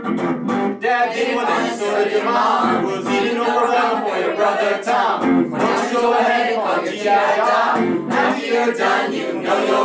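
Mixed group of men and women singing a pop song together in chorus, backed by electric guitar.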